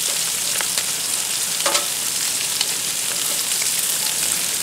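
Bacon and shredded cabbage sizzling in bacon fat on a hot Blackstone flat-top griddle: a steady high hiss with scattered crackling pops. There is one sharper click about a second and a half in.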